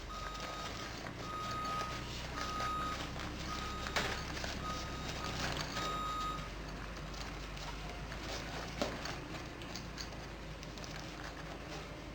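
A vehicle's reversing alarm sounding in the background: a steady high beep about once a second that stops about six seconds in. A few sharp clicks from handling, the loudest about four seconds in.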